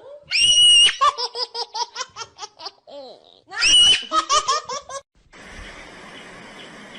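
A baby laughing hard, twice: each fit opens with a high squeal and runs into rapid ha-ha pulses, about five or six a second. It gives way to a steady hiss near the end.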